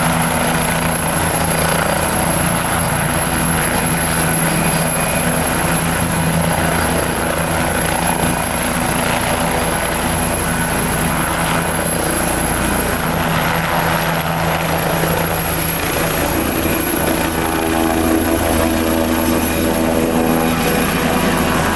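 Helicopter rotor blades chopping steadily over a continuous engine hum. A set of higher steady engine tones comes in more clearly near the end.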